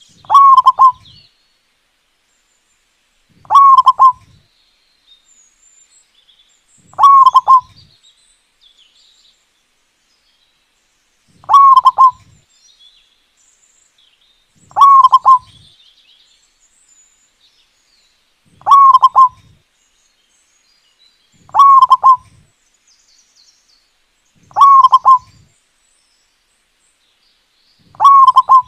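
Zebra dove (perkutut) cooing: nine short phrases of rapid coos, each about a second long, repeated every three to four seconds. Faint high chirps are heard between them.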